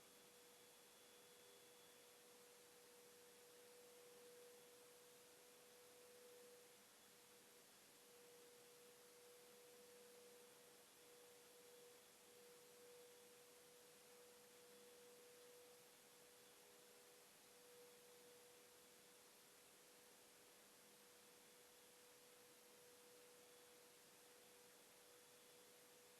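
Near silence: the sound track is turned down, leaving only faint hiss and a thin, steady high hum.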